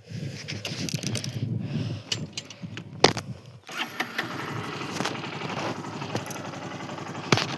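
Small Honda motorcycle's single-cylinder engine being started and running with a rapid, even firing beat. It drops out briefly about three seconds in, starting with a sharp click, then runs again.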